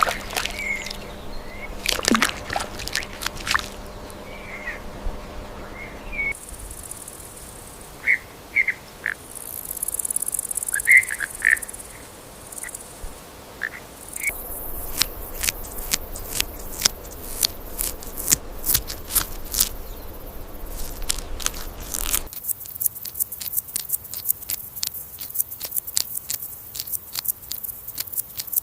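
Short chirping bird calls, scattered and brief, heard across several clips, then a long run of quick sharp clicks and taps through the second half.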